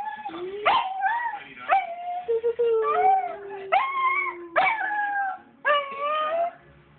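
A dog whining and crying in a string of short cries that rise and bend in pitch, about one a second, with one longer, lower cry falling steadily in pitch about two and a half seconds in.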